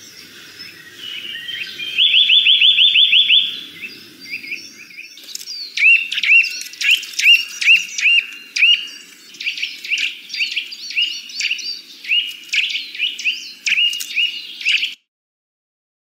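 Eurasian nuthatch singing: a fast trill of about ten notes, then after a short pause a long run of clear whistled notes, two or three a second, over faint background noise. The song cuts off suddenly near the end.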